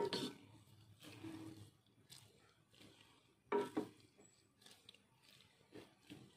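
A spatula stirring shredded chicken in broth in a pot, with wet scrapes and knocks against the pot; the loudest comes about three and a half seconds in.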